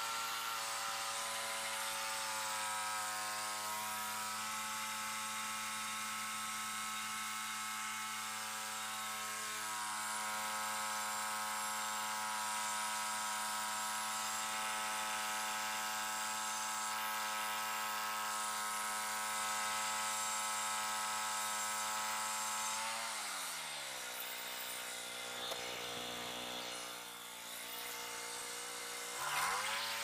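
Frontier OS27 bandsaw sawmill's small gas engine running steadily under load as the band blade cuts through a white pine cant. About three-quarters of the way through, the engine drops to a lower speed for several seconds, then revs sharply back up just before the end.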